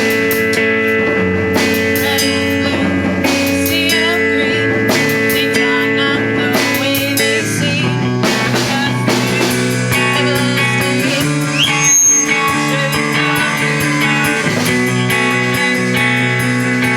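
Live rock band playing: electric guitar chords over bass and drum kit with cymbal hits.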